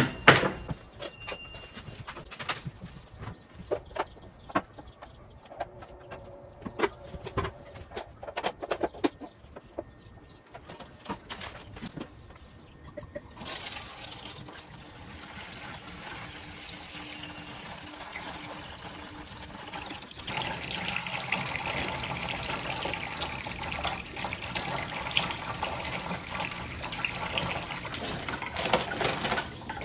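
Aquarium water running steadily out through a siphon hose as the fish tank is drained, starting about halfway through and getting louder a few seconds later. Before that, scattered light knocks and clicks.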